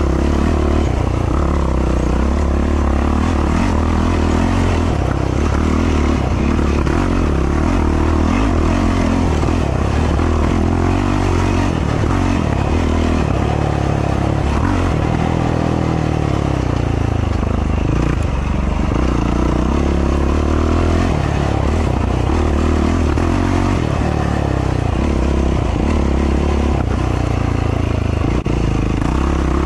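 Race ATV's engine running hard under the rider, its pitch rising and falling as the throttle opens and closes, most clearly about halfway through. The machine clatters over the rough dirt trail.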